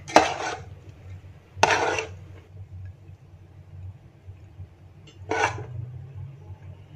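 A metal spoon scraping and knocking against a metal cooking pot three times while rice is scooped out, each stroke about half a second long, over a low steady hum.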